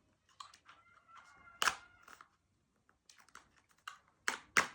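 A small knife cutting into a cardboard box: light scratching and one sharp crunch about a second and a half in, then a quick run of loud, sharp crunching stabs near the end.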